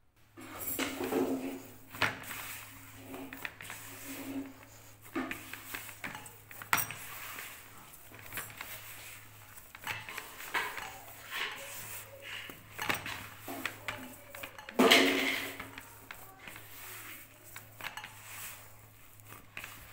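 Hands kneading soft, crumbly dough in a plastic bowl, the bowl shifting and knocking on a plastic tray: irregular soft knocks and clicks, the loudest about fifteen seconds in.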